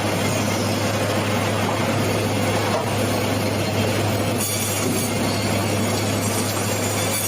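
Sawmill saw running steadily through a Japanese cedar log: a constant noisy rush over a steady low hum.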